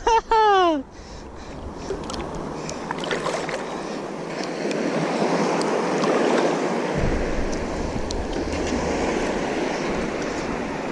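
Surf washing onto a beach: a steady rush of breaking waves, swelling a little in the middle. A short falling vocal exclamation is heard right at the start.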